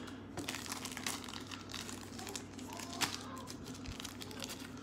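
Glossy trading cards rustling and crackling as fingers handle them close to the microphone, with one sharper click about three seconds in.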